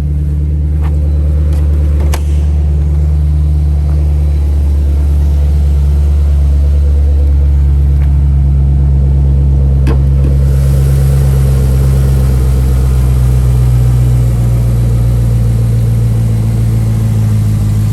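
Holden Commodore SS 6.0-litre V8 with an X-Force aftermarket exhaust idling steadily, running with no unusual sounds. A couple of short clicks stand out, about two seconds in and again about ten seconds in.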